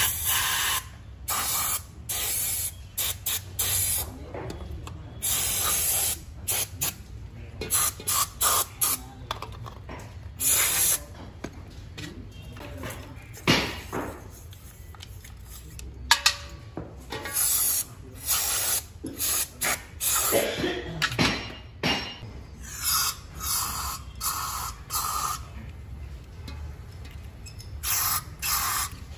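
Aerosol cleaner sprayed in repeated hissing bursts, some short and some about a second long, into and over a motorcycle throttle body to wash out the dirt.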